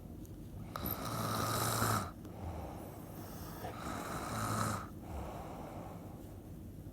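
Snoring in slow, regular breaths: two loud snores about three seconds apart, each lasting about a second and stopping abruptly, with quieter breathing between them.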